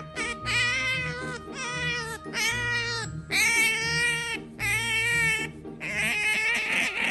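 Cat meowing over and over: about seven long, drawn-out meows in quick succession, the later ones longer and wavering.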